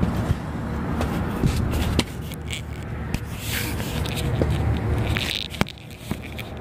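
Scraping, rustling noise over a steady low rumble, with a few sharp clicks and a brief hiss about halfway through.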